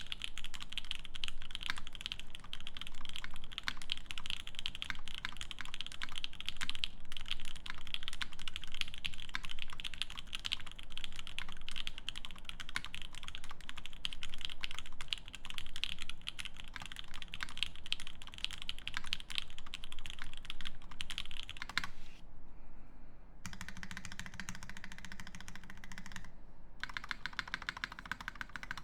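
Fast, continuous typing on a Keycult No.1/65 mechanical keyboard with an aluminium plate, lubed Pinoko V2 linear switches and GMK keycaps: a dense run of crisp, even keystrokes. About three-quarters of the way through there is a brief break, then the key clicks resume with a thinner, different tone.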